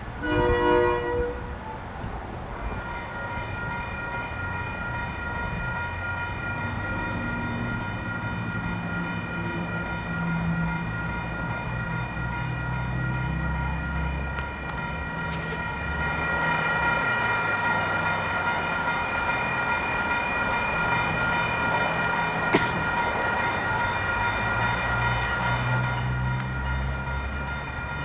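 Railroad grade-crossing warning bell ringing steadily, starting a couple of seconds in after a brief loud tone in the first second. A broad rushing noise swells under the bell for about ten seconds in the second half, with one sharp click in it. Low vehicle or engine rumble runs underneath throughout.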